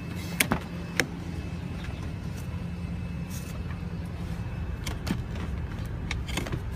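Handling knocks inside an SUV's cargo area: a few sharp clicks, two loud ones close together in the first second and several lighter ones later, over a steady low rumble.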